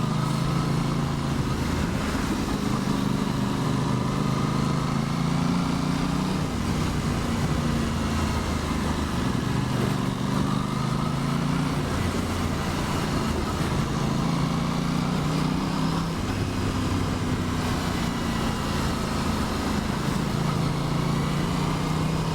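Aprilia Tuono 660's parallel-twin engine running under way, its note holding steady and then shifting up or down in steps several times as the rider changes speed, with wind rush over the helmet microphone.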